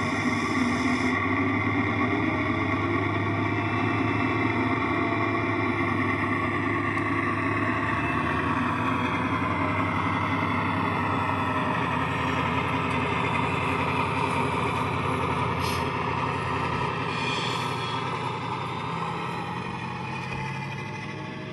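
Dapol Class 68 model locomotive's DCC sound decoder playing a JMC Class 68 diesel sound file through an EM2 speaker, bass-heavy: the diesel engine runs as the locomotive moves off, the engine note shifting in pitch partway through. The sound fades toward the end as the model drives away.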